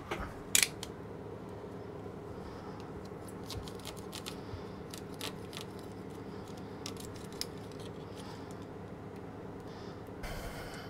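Scattered light clicks and taps of hands and tools working a cooling-water hose onto an engine's fittings, with a sharper click about half a second in, over a steady low hum.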